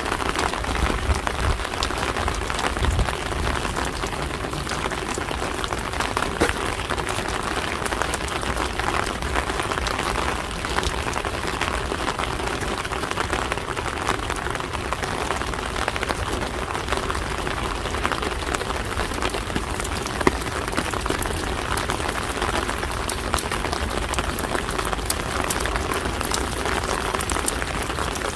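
Steady rain falling, an even hiss with many scattered sharp ticks of individual drops.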